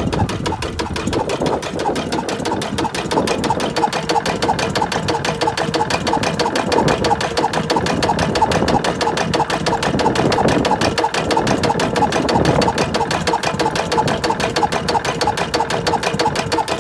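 5 hp Fairbanks-Morse Robson diesel oil engine, Type HOC, running steadily with a fast, even knocking beat.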